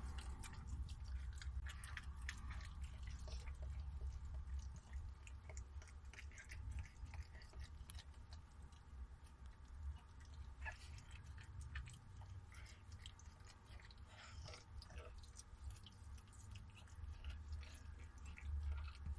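Faint, irregular wet licking and chewing of a mother dog working over a newborn puppy, cleaning it and chewing at its birth membrane and cord, heard as many small clicks and smacks over a steady low hum.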